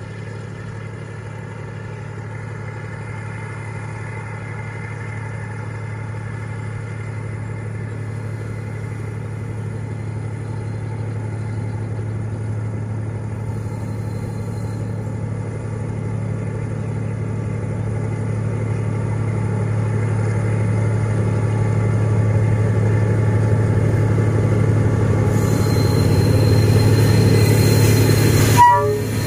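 D19E diesel-electric locomotive's engine running steadily under load as it hauls a freight train up a grade, growing steadily louder as it approaches.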